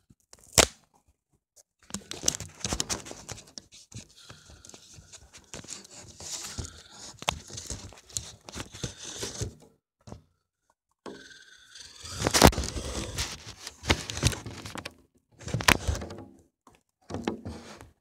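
Bursts of close rustling, crinkling and tearing-like noise with several sharp knocks, broken by a short pause about ten seconds in.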